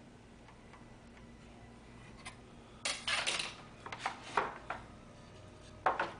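MDF board being handled in a plastic miter box under a backsaw: a stretch of scraping about three seconds in, a quick run of knocks just after, and another knock near the end.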